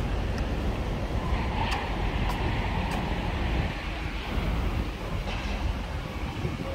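Steady low rumble of a passing vehicle, with a few light clicks around two to three seconds in.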